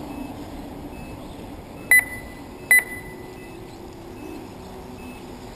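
Two short, sharp electronic beeps at one pitch, a little under a second apart, about two seconds in: the kind a race lap-timing system gives as a car crosses the line. They sound over steady background noise.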